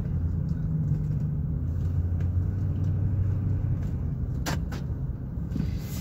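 Car engine and road rumble heard from inside the cabin while driving, a steady low hum, with two sharp clicks about four and a half seconds in.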